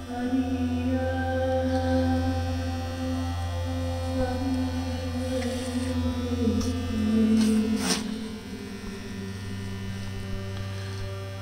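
Metal shaper running while it cuts aluminum: a steady electric hum from its drive, with tones above it that shift as it works, and one sharp click about eight seconds in.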